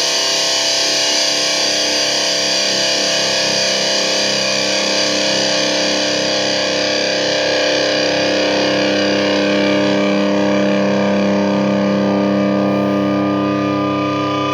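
Distorted electric guitar played through effects, a dense wash of sustained notes with low notes held steadily through the second half.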